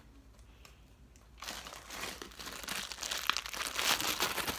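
Green butter slime being squished and pulled in the hands, a dense crackling with many small clicks that starts about a second and a half in.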